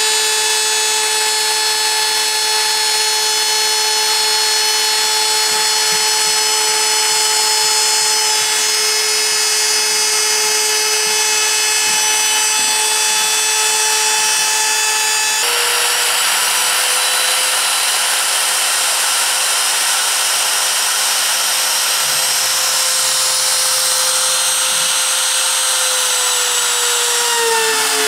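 CNC router spindle running at high speed and cutting into wood: a steady high whine over a rough cutting hiss. The sound changes suddenly about halfway through, and near the end the whine dips slightly in pitch as the load changes.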